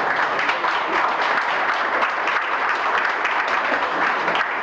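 A banquet audience applauding steadily, many hands clapping at once.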